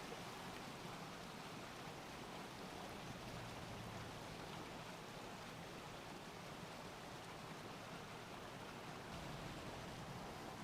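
Steady, faint rush of flowing water, with no distinct events.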